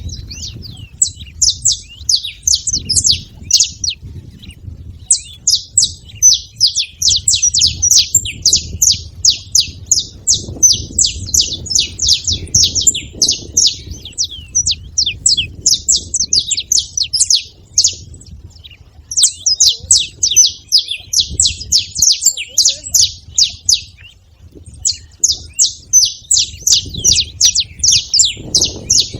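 A flock of saffron finches chirping: fast, dense runs of high chirps lasting several seconds at a time, with a few short pauses.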